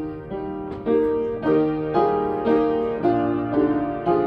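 Piano playing the introduction to a congregational hymn, a steady run of chords at about two a second.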